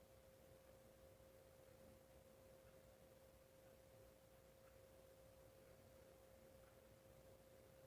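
Near silence: a faint steady hum at one pitch over quiet room tone, with no audible rise and fall of breathing or snoring.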